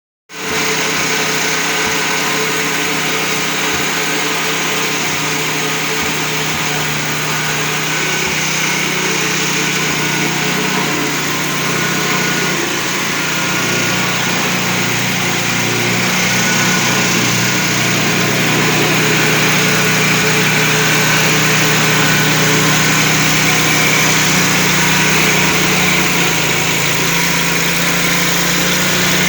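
Motor-driven maggot-feed pulping machine running steadily, being tested on corn cobs: a loud, even mechanical noise over a steady hum.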